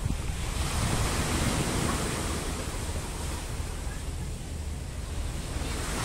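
Surf breaking and washing up a stony shore, swelling in the first couple of seconds, easing in the middle and building again near the end, with wind rumbling on the microphone.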